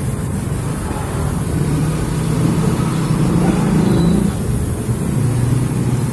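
Motor vehicle engines running in street traffic, with a low engine note that rises and falls over several seconds.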